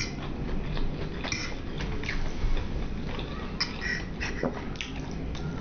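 Close-up mouth sounds of a person eating: irregular wet smacks and clicks of chewing.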